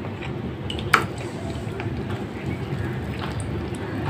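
A single sharp click about a second in, over a steady low rumble, as a bowl is worked over the rim of a pan of simmering broth; near the end, egg-coated chicken and prawns slide from the bowl into the broth.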